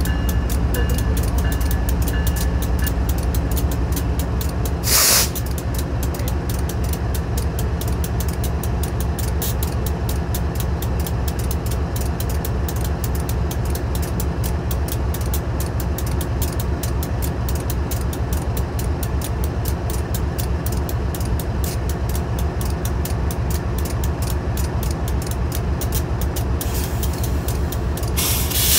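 BNSF ES44C4 diesel-electric locomotive's GE GEVO twelve-cylinder engine idling steadily while standing. Short blasts of compressed air are released, one sharp burst about five seconds in and a longer hiss near the end.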